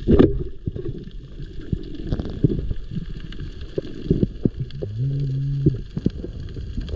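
Underwater sound as picked up by a diver's camera: a low water rumble with scattered clicks, a loud sharp knock just after the start, and a short low hum about five seconds in.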